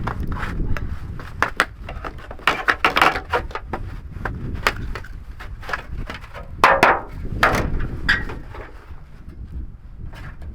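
Irregular wooden knocks and clatter, with some scraping, as of timber being handled and set in place, loudest in a cluster about seven seconds in.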